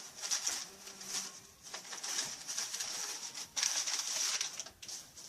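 Paper rustling and crinkling in repeated bursts as wrapped items are unpacked.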